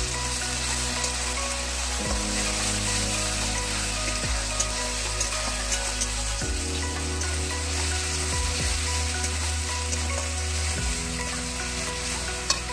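Sliced onions and spice paste sizzling as they fry in oil in an aluminium kadai, stirred and scraped with a metal spatula, with scattered light clicks of the spatula against the pan. The onions are being browned (kosha stage) for a mutton curry base.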